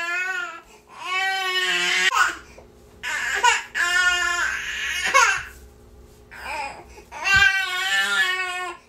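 Infant crying nonstop: a string of high-pitched wails, about five of them, broken by short pauses for breath.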